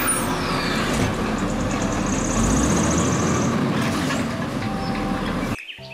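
Automated side-loader garbage truck running while its hydraulic arm lifts and tips a wheeled trash cart; a steady, dense mechanical noise that stops abruptly near the end.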